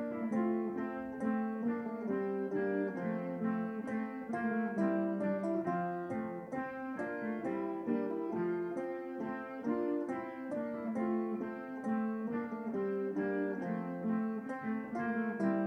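Instrumental background music: a light tune of quick plucked and keyed notes.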